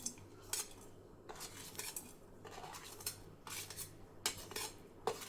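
A metal spoon clinking and scraping against a kadhai as spoonfuls of jaggery are put into it. It makes a series of light clinks, one every half second or so.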